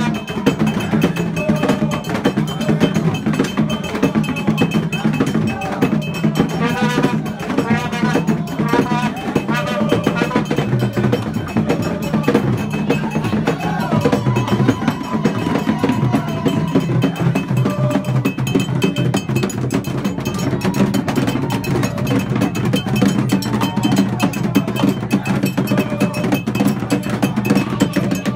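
Percussion-heavy music: drums with struck bells or wood blocks keeping a dense, steady rhythm. Voices are mixed in, with a wavering high pitched sound briefly several seconds in.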